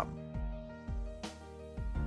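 Quiet background music with held, steady notes.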